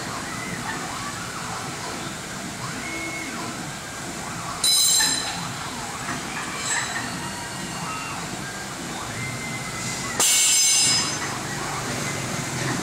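Stepper-driven axes of a CNC router moving the spindle head along the gantry, with a whine that rises and falls in pitch as it speeds up and slows, over steady workshop noise. Two loud, short bursts with high ringing tones break in, one about five seconds in and one about ten seconds in, each lasting under a second.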